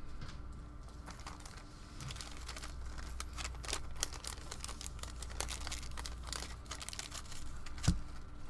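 Foil wrapper of a trading-card pack being torn open and crinkled, a dense crackling that starts about two seconds in and runs for several seconds. A single thump near the end.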